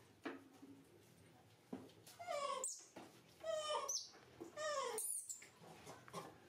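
Newborn baby macaque crying while being bathed: three loud cries about a second apart, each sliding down in pitch, after a couple of shorter squeaks.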